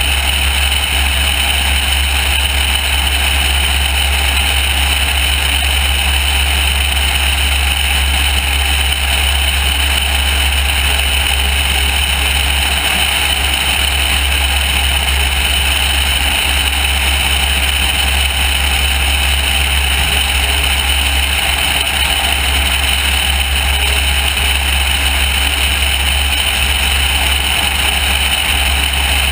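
Loud, steady wind noise on the microphone of a camera mounted outside a high-wing light airplane in cruise flight, with the airplane's engine drone blended into it. It holds even, with no changes.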